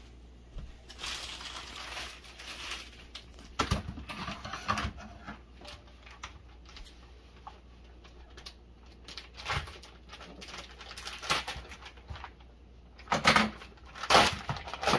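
Plastic package of banana leaves crinkling and rustling in irregular bursts as it is picked up and handled, loudest near the end.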